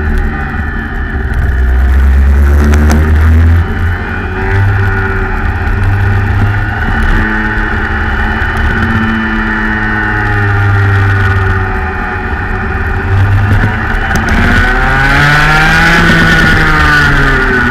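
Rotax Max 125 cc single-cylinder two-stroke kart engine heard onboard at racing speed, its revs rising and falling as the kart lifts and accelerates through the corners.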